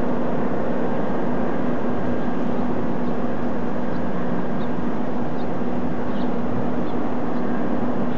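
Diesel locomotive engine running steadily out of sight, a constant hum with one strong steady tone, with a few faint short high chirps over it.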